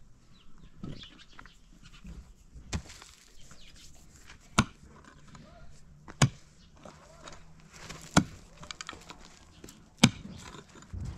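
Five sharp knocks spaced about two seconds apart, with sheep bleating faintly between them.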